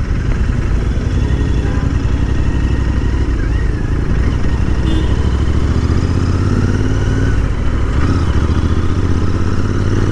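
Royal Enfield Interceptor 650's parallel-twin engine running through aftermarket Powerage slip-on exhausts with dB killers fitted, as the bike rides off through slow traffic, revs rising a little around the middle. The owner calls the exhaust note so mild that people can't tell it from stock.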